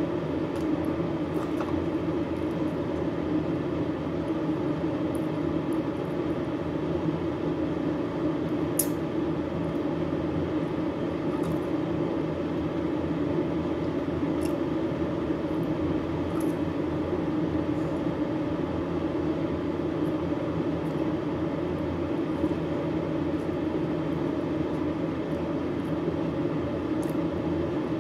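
Steady droning background noise, even throughout, like a running machine or ventilation. A few faint clicks of eating sound over it.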